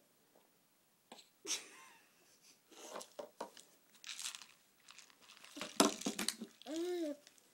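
Dry Cheerios crunching and crackling as they are picked up and chewed, in scattered bursts with the loudest crunches a little before the end. A short rising-and-falling vocal sound comes near the end.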